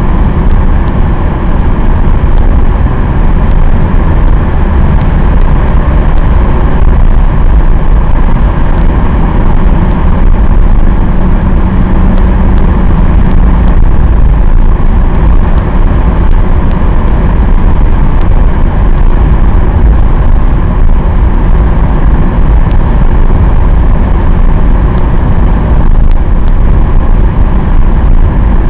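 Mercedes-Benz 190D 2.5's five-cylinder OM602 diesel engine and tyre noise, a steady low drone heard from inside the car while it cruises at constant speed.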